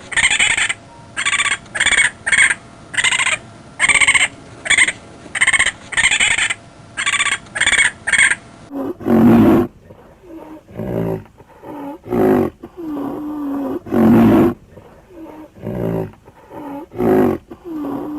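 A lion roaring, a series of low calls of mixed length, some drawn out and some short, from about nine seconds in. Before that comes a quick run of about a dozen short, higher-pitched calls, roughly one and a half a second.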